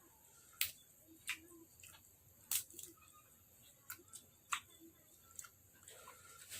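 Quiet eating sounds of someone tucking into a seafood papaya salad: scattered sharp clicks and light taps, roughly one a second, at an irregular pace.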